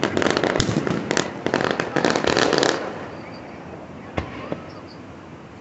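Aerial fireworks shells bursting overhead, a dense run of crackling pops for the first few seconds. It then drops quieter, with a couple of sharp single bangs.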